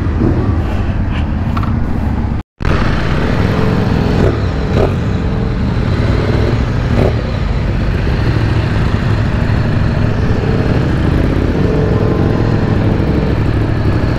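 Ducati motorcycle ridden at low speed, heard from the rider's seat: a steady engine drone over a heavy low rumble of wind and road. The sound cuts out for a split second about two and a half seconds in.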